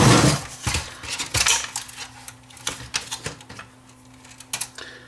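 Clicks and plastic clatter of a VCR's front panel being unclipped and pulled off the metal chassis, with a loud knock at the start and scattered sharp clicks after.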